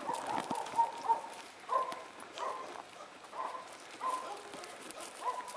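A dog whining: a string of short, high-pitched cries, about one a second.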